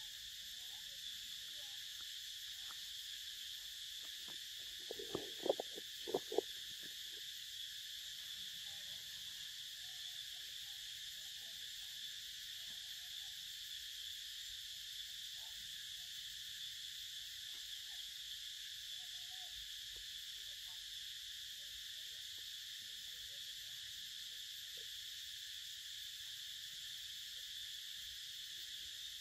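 A steady, high-pitched drone from a chorus of forest insects. A short cluster of sharp knocks and clicks comes about five to six seconds in.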